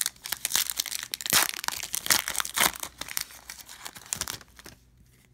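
Foil trading-card pack wrapper being torn open and crinkled: a dense run of crackles that stops about four and a half seconds in.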